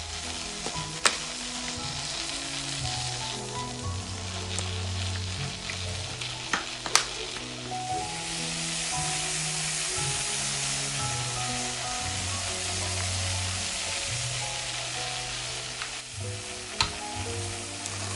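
Scallops sizzling as they grill, a steady hissing with three sharp clicks about a second in, about seven seconds in and near the end. Soft background music with held notes plays underneath.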